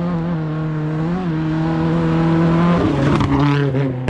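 Rally car at full throttle, its engine held at steady high revs and getting louder, then dropping sharply in pitch just before three seconds in.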